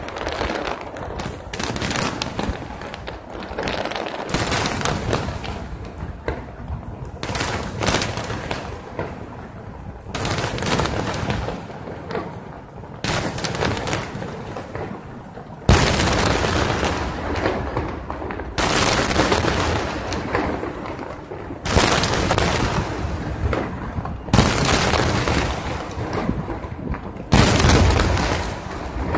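Aerial fireworks bursting one after another in booms and crackles. About halfway through they turn suddenly louder and denser, with bursts coming close together.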